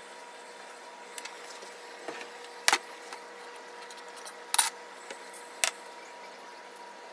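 A few sharp clicks and light clinks from handling things on a kitchen counter, over a steady faint hum. The loudest comes about two and a half seconds in, with a close pair about four and a half seconds in.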